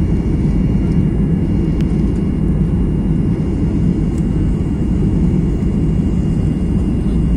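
Steady low roar of a jet airliner's engines and rushing air heard from inside the passenger cabin, on final approach with flaps extended, before touchdown. A faint steady high whine rides over it.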